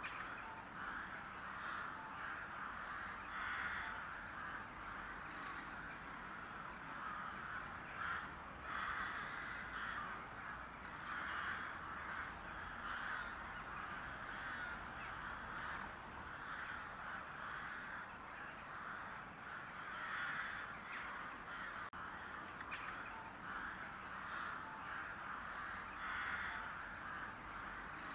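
Crows cawing over and over, a call every second or two.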